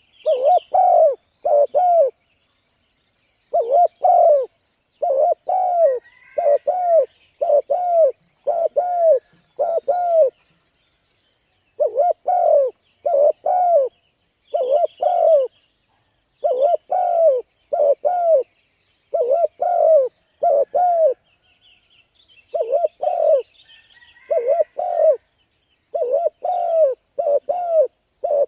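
Spotted dove cooing: loud, low notes in pairs, about one pair a second, in runs broken by short pauses. This is the spotted dove's urging coo call, used to excite a decoy bird and train a young one. Faint higher chirps from other small birds sound now and then.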